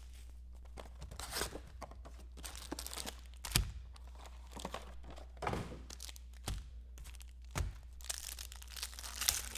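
Trading-card packs and wrappers being handled and torn open: plastic wrapper crinkling and tearing, with a few sharp taps, and denser rustling near the end.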